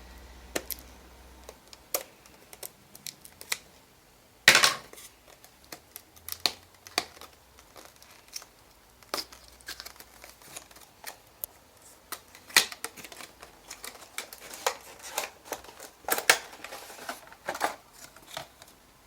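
A thermometer's cardboard box and plastic packaging being opened and handled by hand: irregular clicks, crinkles and rustles, with one loud crackle about four and a half seconds in.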